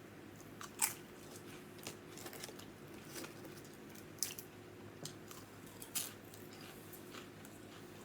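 Close-miked chewing and biting of an Italian sub hoagie: soft wet mouth sounds with sharp crisp clicks, the three loudest about a second in, a little past four seconds and around six seconds.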